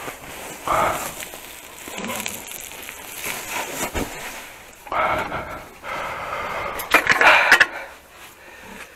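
Sawdust poured from a sack onto a cowshed floor and spread about, giving irregular rustling and scraping, with a few louder bursts about a second in and again near the end.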